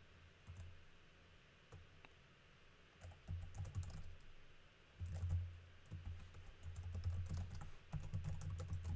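Typing on a computer keyboard: a few scattered keystrokes at first, then runs of quick keystrokes from about three seconds in.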